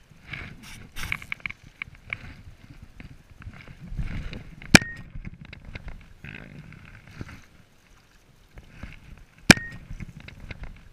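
Water splashing and sloshing as a hooked brown trout is fought close in, with rattling handling noise and two sharp clicks about five seconds apart.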